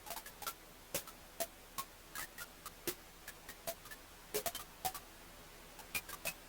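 Wood fire crackling: irregular sharp pops and snaps, several a second, over a faint steady hiss.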